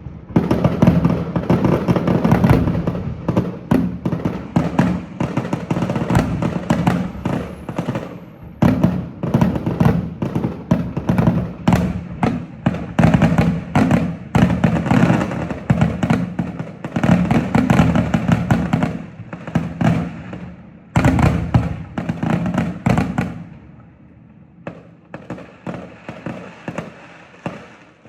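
Fireworks finale: a dense barrage of rapid bangs and crackling, thinning to scattered fainter pops in the last few seconds.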